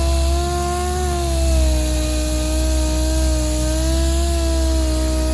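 A feather-edging sander with 320-grit paper on an interface pad, running against a skim coat of body putty on a door panel. It gives a steady whine whose pitch sags and recovers slightly as it loads on the panel, over a sanding hiss.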